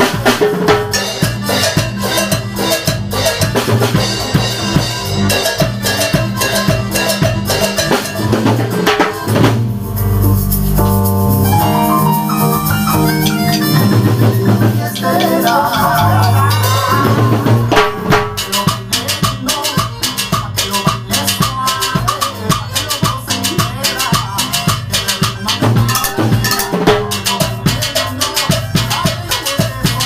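Timbal set of two large drums, cymbals and cowbell played with sticks in fast, dense rhythm over recorded dance music. About ten to eighteen seconds in, the strikes thin out and the backing track's held chords and bass come forward, then the drumming picks up again.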